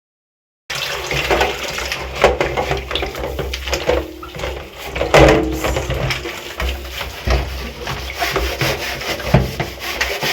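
Removable fridge parts being scrubbed with a soapy scouring pad: irregular rubbing and scraping with knocks and water sounds, starting suddenly after about half a second of silence.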